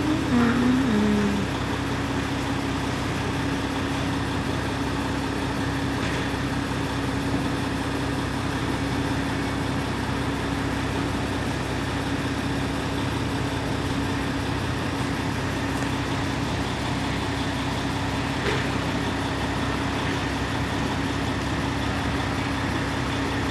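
Heavy diesel truck idling steadily, a constant hum with one held tone, over city street traffic noise.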